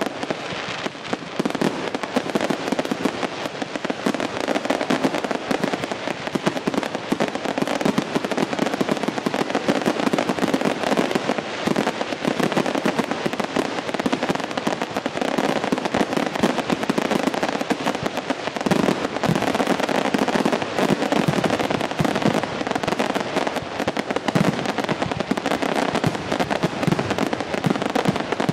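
Fireworks going off in a dense, continuous barrage: many aerial shells bursting and crackling in rapid succession, with no pause.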